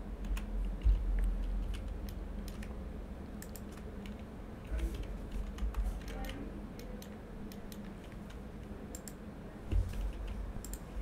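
Computer keyboard and mouse clicks, scattered and irregular, with a few dull low bumps.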